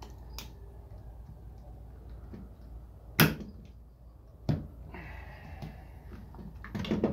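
A tool clicking, knocking and scraping against the plastic housing of a Bose cube speaker as its glued seam is pried loose: a few sharp knocks, the loudest about three seconds in, with scraping between.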